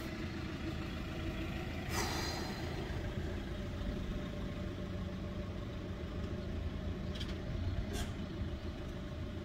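Steady low engine drone of a running motor vehicle, with a brief hiss about two seconds in and two fainter ones near the end.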